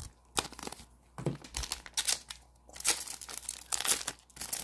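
Wrapper of a 2021 Panini Mosaic football trading card pack crinkling and tearing as it is ripped open by hand, in short irregular crackles.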